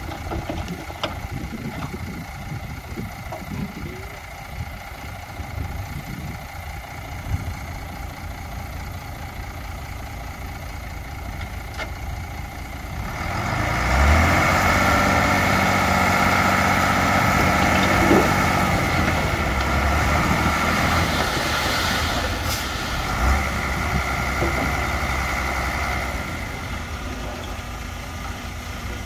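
Heavy diesel earthmoving machine engine running. It is quieter at first, then swells louder about halfway through, holds for about twelve seconds, and eases back near the end.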